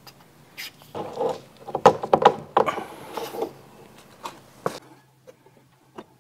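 A run of sharp knocks and clattering handling sounds, densest in the first half, then a few single knocks, over a faint steady low hum.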